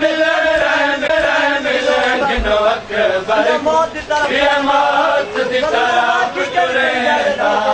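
Men's voices chanting a noha, a Shia mourning lament in Punjabi, in phrases with brief breaths between them.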